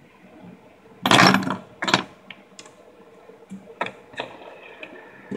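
Fidget spinners clicking and clattering against each other and the wooden tabletop as they are stacked and handled: a loud clatter about a second in, a sharp clack just after, then a few lighter clicks.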